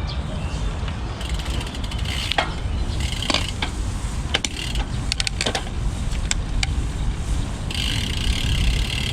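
Road bike's rear freewheel ticking as the rider coasts, in runs of rapid clicks about a second in and again near the end, over a steady low rumble from riding.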